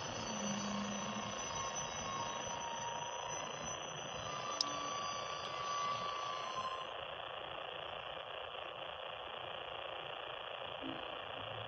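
Loaded covered grain hopper cars rolling past on the rails, a steady rushing noise of wheels on track. Thin high-pitched squeals come and go over the first seven seconds or so, and there is a single sharp click about four and a half seconds in.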